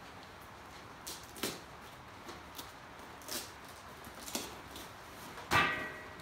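Handling of a fabric gear bag and its shoulder strap: several short rustles and clicks, with one louder, sharper sound near the end.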